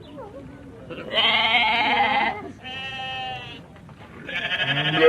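Sheep bleating: three wavering bleats of about a second each, the middle one softer.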